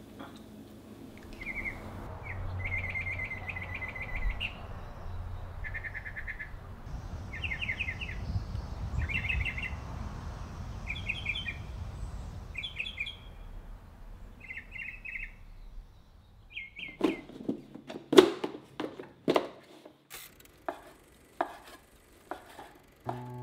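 A songbird sings short, repeated chirping phrases. From about two-thirds of the way in, it gives way to a kitchen knife slicing sausage on a wooden cutting board: a string of sharp, uneven knocks.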